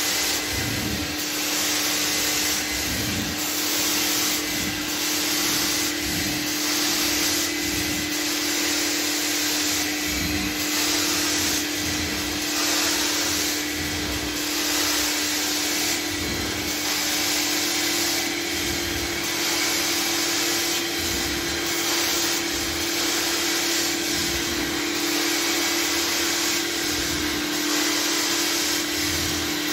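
Hot water extraction carpet-cleaning machine running, its vacuum giving a steady hum while the floor wand is worked across wet carpet in repeated strokes. The suction hiss swells with each pass, about every two seconds.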